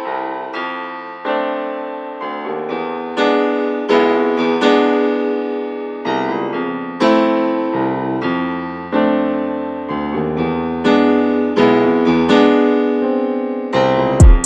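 Piano music, a steady run of struck notes, each fading after it is played. A loud, sharp thump comes near the end.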